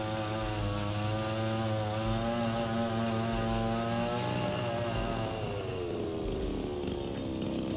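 Lawn mower running steadily with a motor hum. About halfway through its pitch slides down and settles lower.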